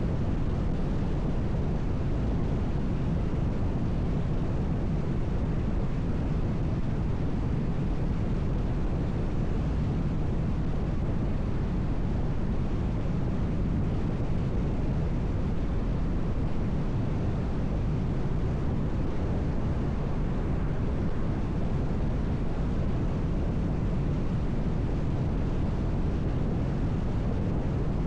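Steady low road rumble of a car driving on a highway: tyre and engine noise holding at an even level, with no change in pace.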